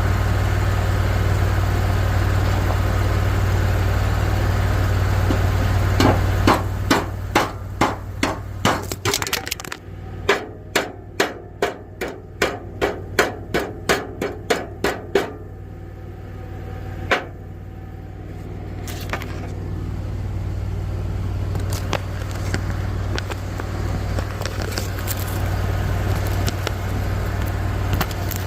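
Hammer striking metal in an even run of about twenty blows, roughly two a second, then a single blow after a short pause, over a steady low hum.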